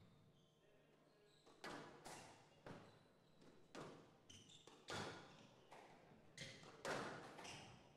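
Squash ball being struck back and forth in a rally: about nine sharp hits of racket on ball and ball on the court walls, irregularly spaced half a second to a second apart, each echoing in the hall.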